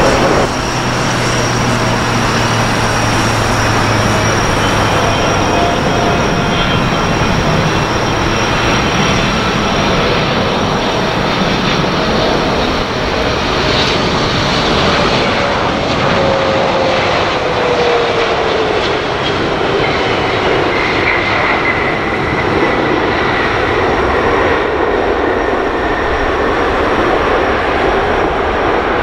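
Boeing 777-300ER's GE90-115B jet engines: a loud, steady roar as the airliner lands and rolls out, with an engine whine that glides slowly down in pitch.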